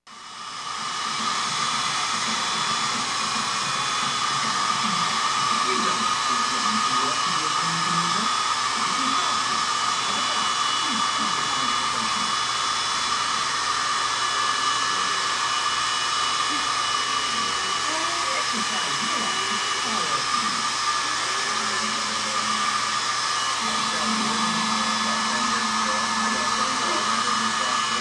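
Handheld hair dryer running steadily: an even rush of blown air with a thin steady whine, rising in over the first second.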